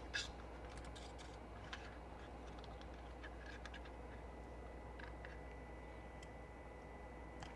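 Faint, scattered light clicks and taps of small electronic parts and an antenna cable being handled, over a steady low hum.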